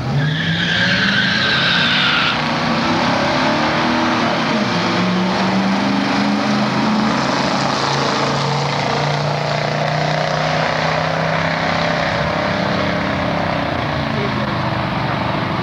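Drag race launch: a Ford Mustang's 5.0 V8 and a second car leaving the line with a short tire squeal, then the engines revving up through the gears with a shift about four and a half seconds in.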